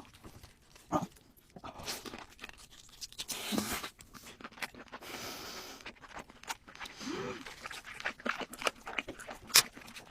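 Close-miked eating: crunching bites, chewing and wet mouth clicks, with a short hum of a voice about seven seconds in.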